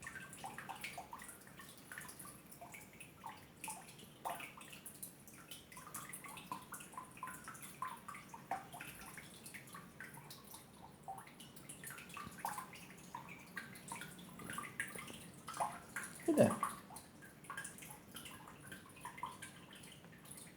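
Water dripping and gurgling, with many small plinks scattered throughout and one louder gurgle about sixteen seconds in whose pitch drops sharply.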